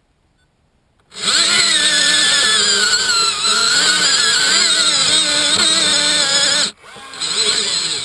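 RC model bulldozer's electric drive motors and gearing whining under load as the model moves. The whine starts about a second in, wavers in pitch, stops abruptly near the end and starts again.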